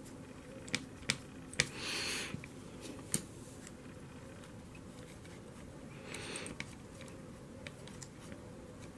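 Hands working on a Lionel locomotive's drive rod at close range: a few light clicks and taps, with two brief soft hissing rubs about two and six seconds in.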